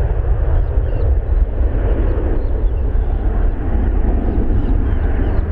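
Airbus A320-232 jet airliner at takeoff power just after liftoff, its two IAE V2500 turbofans giving a loud, steady, deep rumble as it climbs away.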